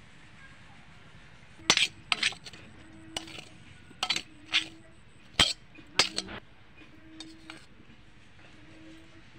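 Steel spatula and spoon scraping and knocking against a black wok and a steel plate while serving noodles: about a dozen sharp, irregular metal clinks with a brief ring, starting a couple of seconds in.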